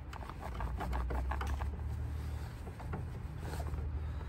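Small clicks and rattles of hands working on plastic clips and hoses under a car's open bonnet, over a steady low rumble.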